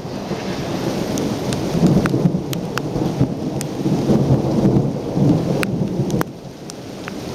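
Thunder rolling in a long low rumble through heavy rain, swelling in the middle and dropping off sharply about six seconds in. Scattered sharp crackles are raindrops striking the camera.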